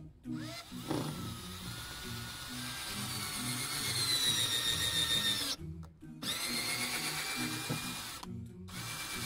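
Cordless drill-driver driving a screw into the floor panel: the motor whine runs about five seconds, its pitch dropping toward the end as the screw bites, stops briefly, then runs again for about two seconds and starts once more near the end.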